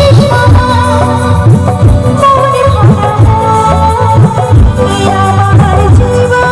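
A Bengali song played loud, with a heavy bass beat and a wavering melody line.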